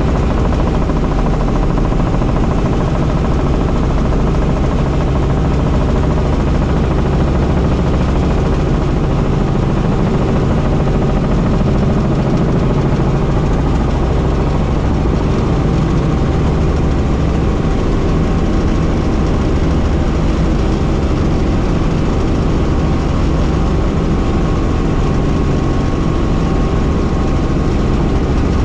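Helicopter in flight: a steady, loud drone of engine and rotor with a fast, even chop of the blades underneath.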